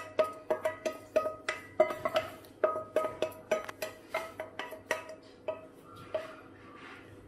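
Wooden spoon knocking and scraping against a stainless steel bowl, each knock ringing with a short metallic tone, about two or three knocks a second, thinning out after about five seconds.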